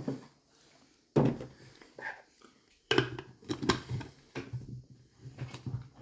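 Thunks and knocks of kitchen things being handled on a countertop: a plastic milk jug set down and a personal blender cup picked up and its blade lid fitted on. One sharp thunk about a second in, another near three seconds, then a run of smaller knocks.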